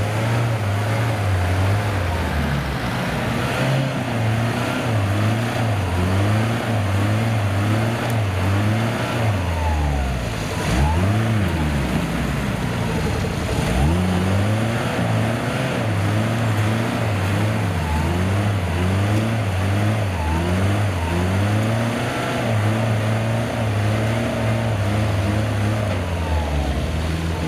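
Diesel engine of a LuAZ off-roader revving hard and unevenly as its wheels spin in deep mud, trying to climb out of a ditch with its differential locks not engaging. The engine speed keeps rising and falling, with two sharp drops and recoveries about halfway through.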